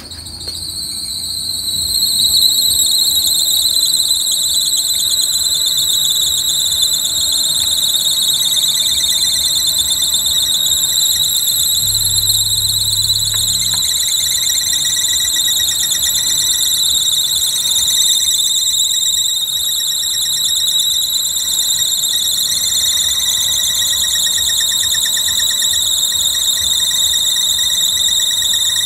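A loud, continuous high-pitched squeal from the running Mitsubishi 4G13 1.3-litre engine, holding one pitch that sags slightly lower over time, with a fast warble. It swells up over the first two seconds.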